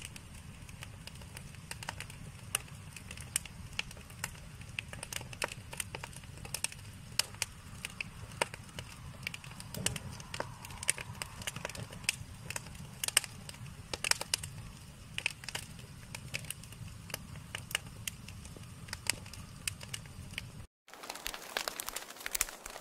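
Wood fire burning in a fireplace, crackling with irregular sharp pops and snaps over a low steady rumble. Near the end it cuts off for a moment and resumes with crackles but without the rumble.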